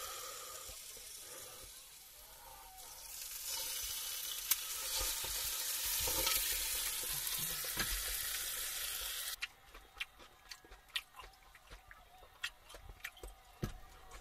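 A steady sizzling hiss that cuts off abruptly about nine seconds in, followed by scattered light clicks and taps.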